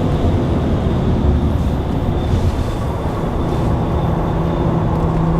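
Cadillac CTS's twin-turbo V6 at speed, heard from inside the cabin: a steady, heavy rumble of engine with tyre and road noise. A steady engine note settles in about four seconds in.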